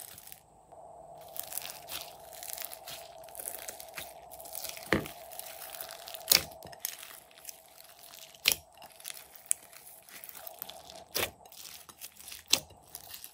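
Hands kneading and stretching glossy slime mixed with clay, sprinkles and glitter: a continuous wet crackling and crunching, with about five loud sharp pops spaced through it.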